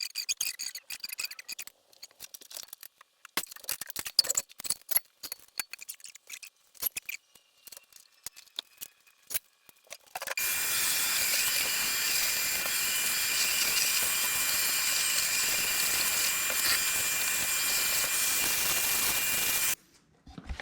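Scattered knocks and clatter of things being handled. About halfway through, an electric motor starts and runs steadily for about nine seconds with a high whine over a rushing hiss, then cuts off suddenly.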